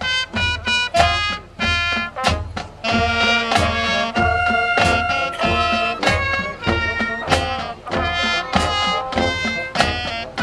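A marching band playing: brass instruments, including trumpets, trombones and sousaphone, sound held chords and lines over frequent sharp drum hits from the drumline.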